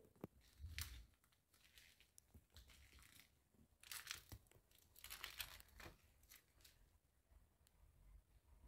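Faint, irregular footsteps crunching on broken brick and plaster debris, a scatter of short crackles with the clearest about four and five seconds in.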